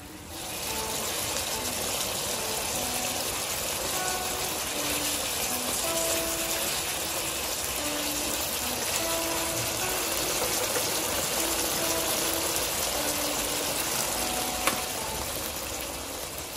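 Chicken organs and scallions sizzling steadily in a hot wok as they are stir-fried, the sizzle starting about half a second in and easing off near the end. There is one sharp click near the end.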